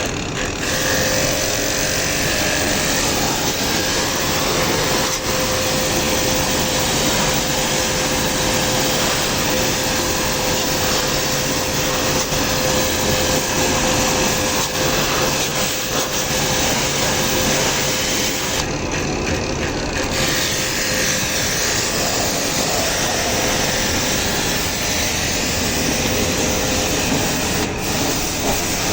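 Electric water pump of a pressure washer running steadily while its jet sprays the air conditioner unit: a continuous motor hum under a constant hiss of spray.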